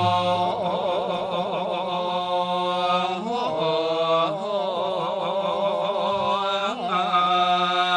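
Buddhist monks chanting together: long held tones over a steady drone, some voices wavering around the note, with the pitch shifting about three seconds in and again near the end.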